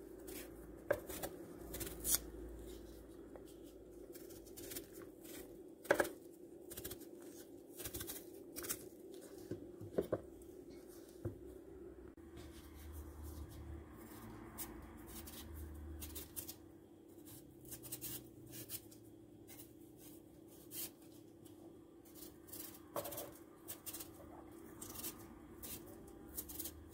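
Raw potatoes being peeled with a kitchen knife: a run of faint, irregular short scrapes and clicks as the blade cuts off the skin, over a steady low hum.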